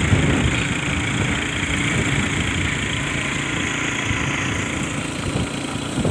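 Small motorbike engine running steadily while riding, with wind rumbling on the microphone.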